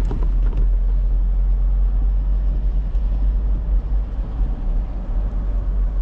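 Pickup truck driving, a steady low rumble of engine and road noise.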